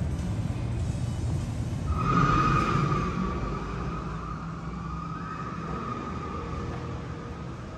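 Steady low rumble of a large hall. About two seconds in, a louder rush sets in with a steady high-pitched whine that slowly fades over the next four seconds.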